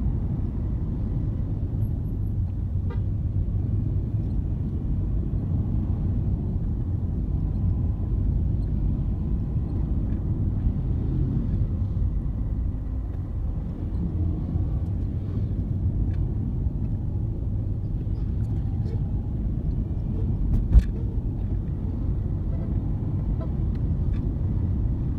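Steady low rumble of road vehicles, with a single sharp knock about twenty-one seconds in.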